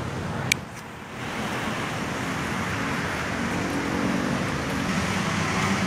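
City street traffic: a steady wash of car and motorbike engines and road noise, with a sharp click about half a second in followed by a brief dip before the traffic noise builds again.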